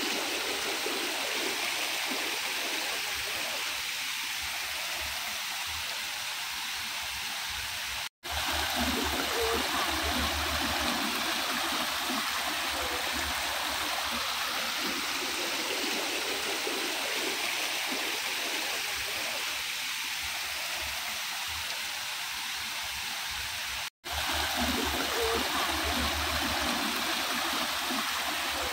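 Small stream of water rushing and splashing down a little cascade over mossy rocks in a steady, even flow. It cuts out for an instant twice, about eight seconds in and again near the end.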